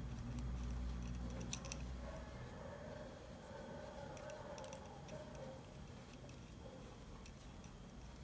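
Faint, sparse clicks and taps of metal circular knitting needles as stitches are picked up onto them, with a low hum under the first couple of seconds.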